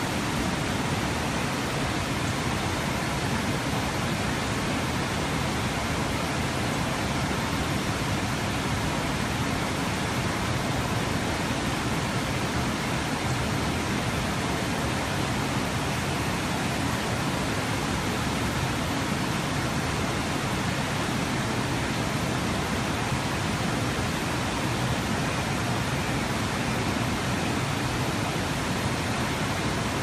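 River water pouring over a low stepped weir and churning in the rapids below: a steady, unbroken rush.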